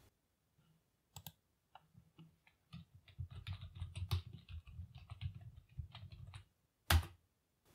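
Typing on a computer keyboard: a quick run of keystrokes, then one louder key click near the end.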